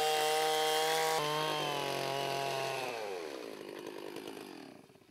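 Two-stroke chainsaw running at full throttle as it rips lengthwise along a log. About three seconds in the throttle is released, and the engine note falls in pitch and fades away near the end.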